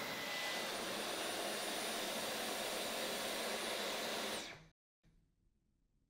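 Dyson V12s Detect Slim cordless stick vacuum running with its mini motorised tool: a steady rush of air with a thin high motor whine, which cuts off about four and a half seconds in.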